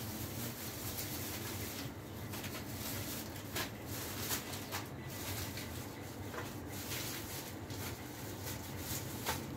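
Clear plastic shopping bag crinkling, with scattered small clicks and rustles as goods are packed into it by hand, over a steady low hum.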